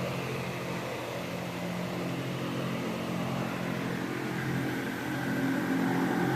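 Steady machine hum, with an even low drone and background hiss that swell slightly near the end.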